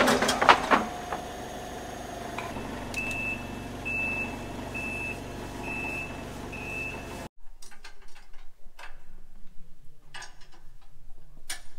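Cat forklift engine running, with metal clanks at the start, then its reversing alarm beeping five times, about once a second. The engine sound then cuts off suddenly, leaving scattered light clicks and knocks.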